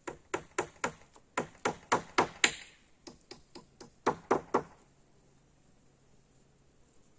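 Hammer blows in a quick run, about three or four a second, some seventeen strikes in all, stopping about four and a half seconds in.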